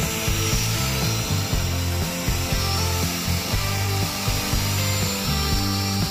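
Small quadcopter drone hovering close overhead, its motors and propellers buzzing with a hum that keeps stepping up and down in pitch as the motors adjust their speed.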